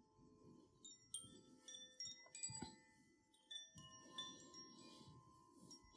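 Very faint chime tones ringing out one after another at irregular moments over a soft low haze: a gentle chime-based background music bed for guided meditation.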